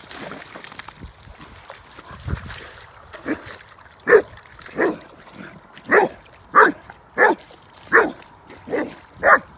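Great Dane barking repeatedly, a string of about ten short barks starting about three seconds in, roughly one and a half a second, excited at another dog retrieving a ball from the water.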